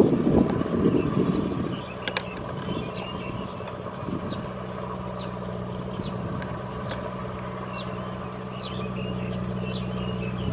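Engine of a small homemade farm truck running steadily as it pulls a heavy load of rice sacks, with a louder, rougher noise over the first two seconds before it settles to an even hum.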